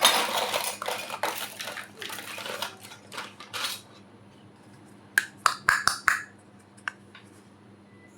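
Small toy kitchen pieces, dishes and utensils, being handled: scraping and rustling for the first few seconds, then a quick run of sharp clacks and clinks about five seconds in, with one more shortly after.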